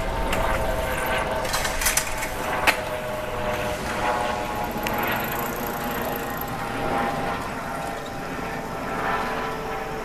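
Tokyu Ikegami Line electric train running away from the level crossing with a steady hum, and a few sharp clicks about two seconds in.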